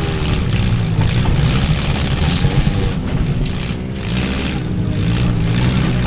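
Demolition derby van's engine running loud and revving, heard from inside the cab.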